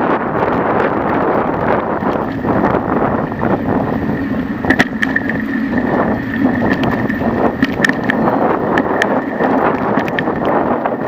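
Bicycle rolling over a concrete-slab path: steady tyre rumble and rattling, with wind buffeting the microphone. A thin steady whine comes in about two seconds in, and sharp knocks and clicks come at the slab joints from about halfway on.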